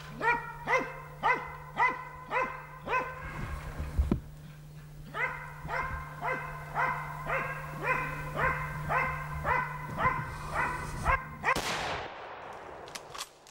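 A male tracking dog bay-barking steadily at a wounded red deer stag it holds at bay, about two barks a second, with a short break around the fourth second. Near the end a single rifle shot, the finishing shot at the stag, rings out and dies away.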